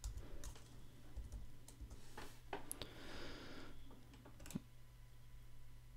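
Faint typing on a computer keyboard: scattered keystrokes and a few clicks, over a low steady hum.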